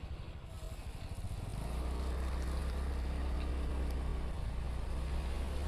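Motorcycle engine picking up about a second and a half in, then running steadily as the bike rides along a wet road.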